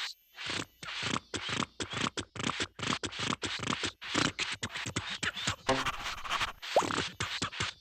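Cartoon scratching sound effect: fast, repeated scratching strokes, about five a second, that stop after some five seconds. A short rising squeak follows near the end.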